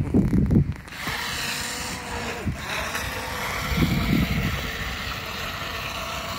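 Toy radio-controlled speedboat's electric motor starting up about a second in and whirring steadily as the boat runs across the water, its pitch dipping briefly about two and a half seconds in.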